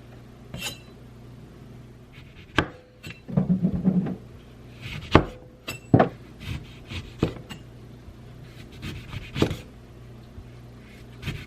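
Kitchen handling sounds: scattered knocks and clinks of dishes and utensils, with a short rattling patch about three and a half seconds in.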